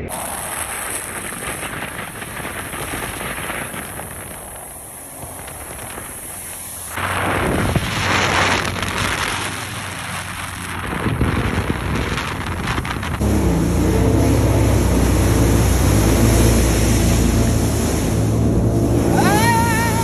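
Sea-Doo Spark personal watercraft running at speed. At first it is fairly quiet under wind, then about seven seconds in a loud rush of water spray comes in. From around the middle on, its three-cylinder Rotax engine runs loud and steady close by.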